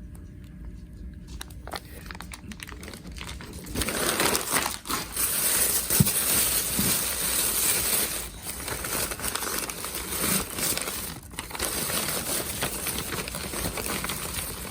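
Shipping packaging crinkling and rustling as it is handled and unwrapped, starting about four seconds in and continuing almost to the end.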